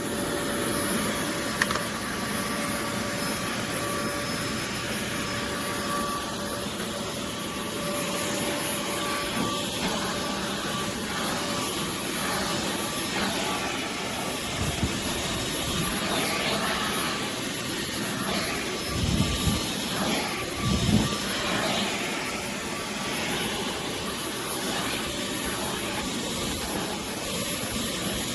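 Oreck Commercial XL Pro 5 compact canister vacuum running steadily, a jet-like whine with a high hiss. A few dull knocks come past the middle.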